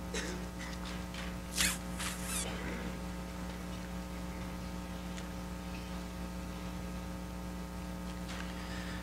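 Paper rustling at a lectern as pages are handled, two brief rustles about one and a half and two seconds in and a faint one near the end, over a steady electrical hum from the sound system.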